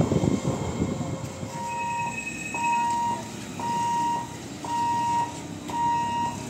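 Rumble of a passing electric local train fading away, then an electronic warning beeper sounding about once a second, each beep about half a second long, six times.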